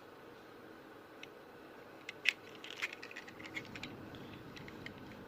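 Knock-off Hot Wheels toy cars with plastic wheels handled and set down, making a scatter of small clicks and rattles, the sharpest knock about two seconds in.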